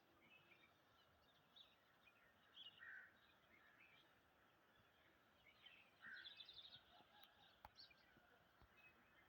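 Faint, scattered bird chirps over a low background hiss, with a brief busier flurry of calls about six seconds in.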